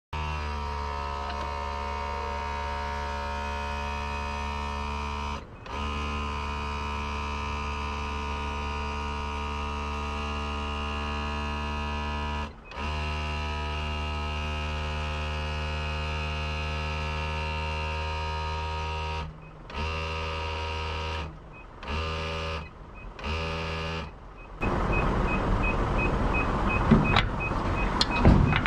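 Heavy truck tractor's diesel engine idling steadily, with a few abrupt breaks. In the last few seconds a fast, high beep repeats and loud clattering handling noise comes close to the microphone.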